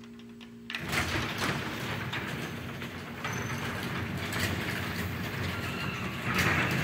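LiftMaster 3575 3/4 HP screw-drive garage door opener starting a little under a second in and running steadily, moving the overhead sectional door. The sound grows louder and rougher near the end.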